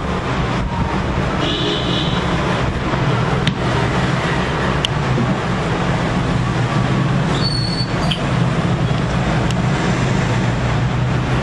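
Steady street traffic noise, with two short high-pitched toots, one about a second and a half in and one near seven and a half seconds.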